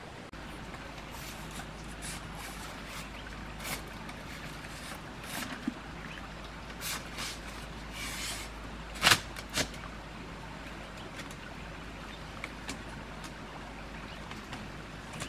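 Split bamboo strips clicking and knocking against each other as they are woven into a bamboo wall, with one sharper, louder knock about nine seconds in. Running stream water hisses steadily underneath.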